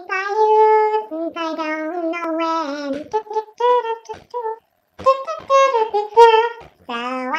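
Young voices singing, pitched up high in a chipmunk-style effect, with short held notes and a brief pause about four and a half seconds in.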